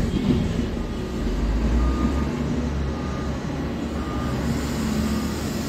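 Heavy mining truck's engine running with its reversing alarm beeping faintly about once a second, over a steady rush of noise.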